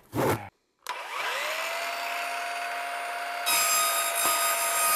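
A brief loud burst, then an electric motor spins up with a rising whine and runs at a steady pitch. About three and a half seconds in, a louder, higher-pitched layer joins it.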